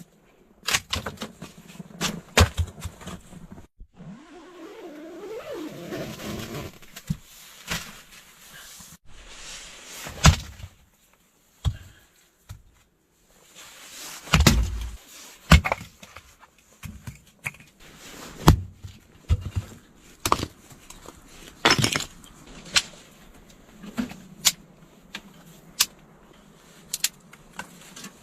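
Irregular sharp knocks and clicks, well over a dozen spread through, with a short stretch of wavering pitched sound about four to seven seconds in.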